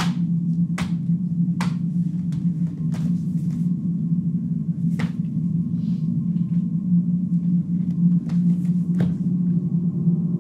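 Ambient music: a low, steady drone with sharp clicks over it at irregular intervals, several in the first few seconds and a close pair near the end.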